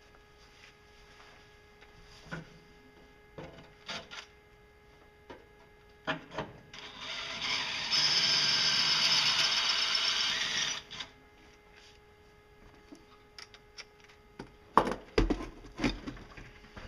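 Sheet metal scraping and knocking as scrap panels are shifted and pulled from a stack. There are a few light knocks, then one long scrape of about four seconds in the middle, and a handful of heavier clanks and thumps near the end.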